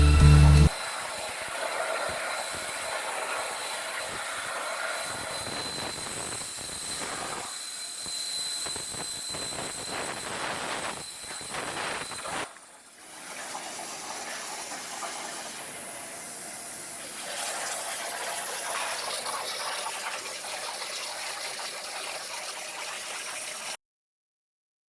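Torch of a CNC cutting machine cutting metal: a steady hiss with a faint high whine. It drops out briefly about halfway, then cuts off abruptly near the end.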